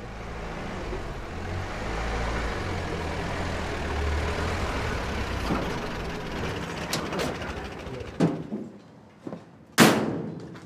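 A canvas-topped military truck's engine running as it drives up and comes to a stop, its rumble swelling and then fading away. Near the end, one sharp, loud door slam.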